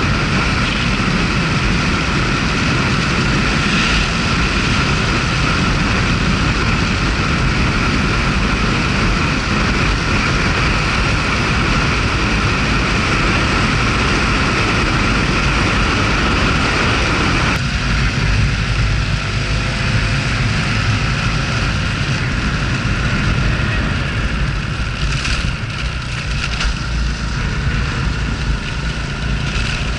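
Honda Super Cub 110's small single-cylinder four-stroke engine running steadily under way, mixed with rushing wind noise. The sound changes abruptly about 17 seconds in, where the middle of the drone drops away.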